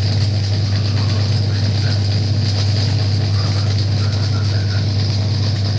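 Homemade compressor prototype running steadily: a loud, constant low hum with a fast mechanical chatter.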